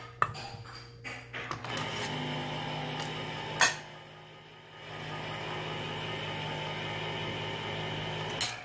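Hamilton Beach electric can opener running, its motor whirring steadily as it cuts the lid off a small steel can. It stops with a sharp click about halfway through, then runs again for about four seconds and cuts off with another click.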